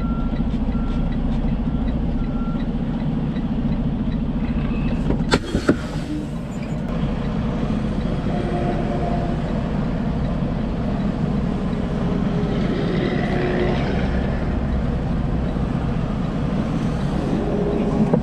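Semi truck's diesel engine running steadily at low revs, heard from inside the cab while the rig backs slowly. A brief sharp noise cuts through about five seconds in.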